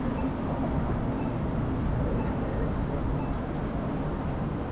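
Steady wind rumble and road noise on a microphone riding along on a bicycle, with faint short high chirps about once a second.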